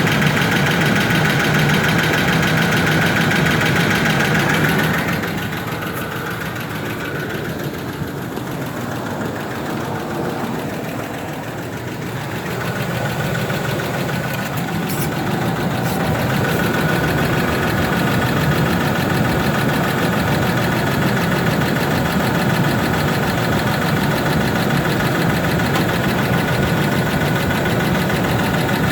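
Ford F-150's 4.2 L V6 idling steadily with a ticking noise that persists even though the engine has already been rebuilt. The sound drops in level about five seconds in and comes back up by about fifteen seconds.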